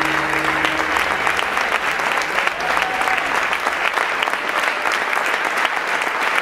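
Theatre audience applauding steadily, a dense mass of hand claps.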